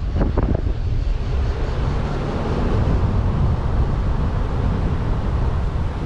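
Steady low rumble of a vehicle driving on a paved road, with wind buffeting the camera microphone. A few brief knocks come about half a second in.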